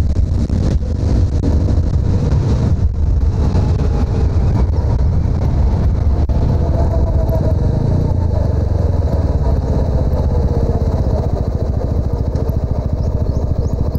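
TVS Apache RTR 200's single-cylinder engine and exhaust running steadily under way on the motorcycle, with a fast, even firing pulse throughout.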